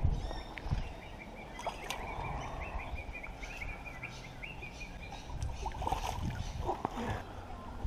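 A bird calling: a quick run of high chirps in the first few seconds, with scattered chirps later. Under it runs a low, uneven rumble with a few clicks, like wind or handling on the microphone.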